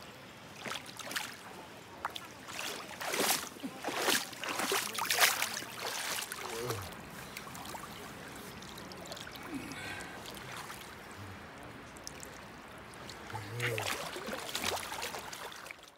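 Water splashing in bursts as a large salmon thrashes and is lifted in a shallow stream, over the steady wash of the flowing water. The splashing is busiest in the first few seconds and comes again near the end.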